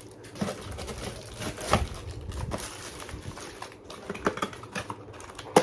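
Storage jars and their lids being handled and set back: a few scattered knocks and clicks, the sharpest one near the end.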